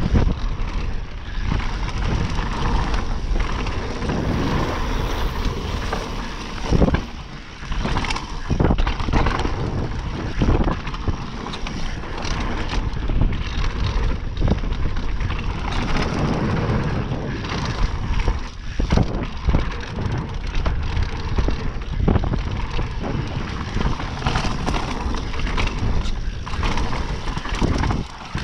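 A Specialized Demo Expert downhill mountain bike ridden fast down a dirt trail: tyres rolling over dirt and loose leaves, wind rushing over the microphone, and the bike rattling with many sharp knocks over bumps.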